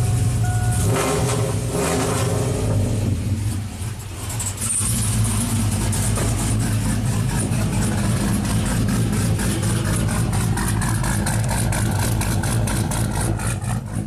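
A 2000 GMC Sierra's 5.3-litre V8, fitted with an aftermarket camshaft and exhaust, is idling with a steady, pulsing exhaust note. The truck has a misfiring and near-stalling problem, with a P0336 crankshaft position sensor performance code. A two-tone cab chime stops about a second in.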